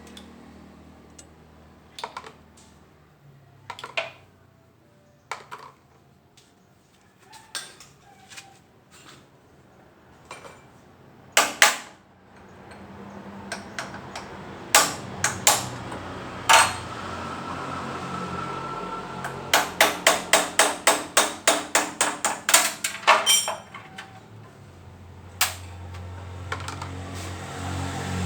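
Hammer and tools striking metal transmission parts while an Isuzu Panther 2.5 gearbox is being dismantled: scattered sharp knocks and clinks, then a quick run of about a dozen hammer blows, some four a second, a little past two-thirds of the way through.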